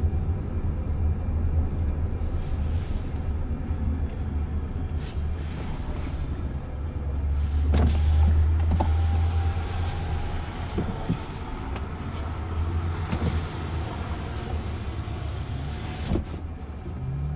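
Road and tyre noise inside the cabin of an electric Jaguar I-PACE driving in traffic: a steady low rumble that swells about eight seconds in, while a truck is close alongside.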